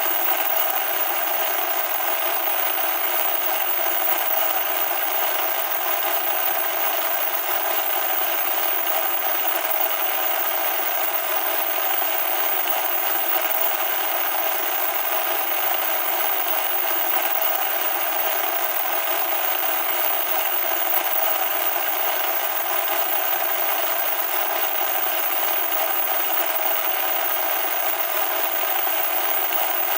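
Loud, steady static hiss, harsh and thin with no low end, unchanging throughout.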